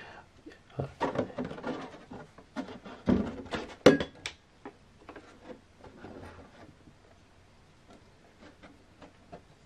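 Painted polycarbonate RC truck body being handled and turned over in the hands: plastic rustling with a few light knocks and clicks, the sharpest about four seconds in, then only faint ticks.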